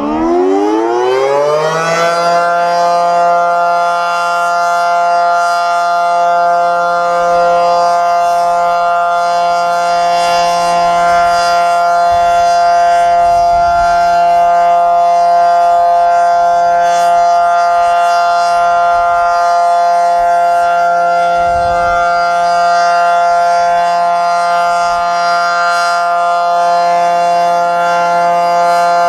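Federal Signal Model 5T fire siren winding up over about the first two seconds, then holding a loud, steady chord of several pitches through a test sounding.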